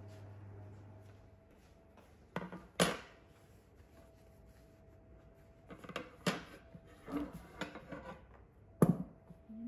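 Metal kitchen handling: a stainless steel mixing bowl and a wire trivet knocking and clattering on a stone benchtop as they are set down and moved. A low hum fades out in the first second. Two sharp knocks come between two and three seconds in, the second the loudest, then a run of lighter knocks from about six to eight seconds and one more strong knock near the end.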